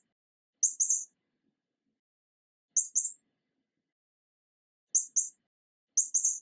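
Short groups of two or three quick, high-pitched chirps, heard four times with silence in between.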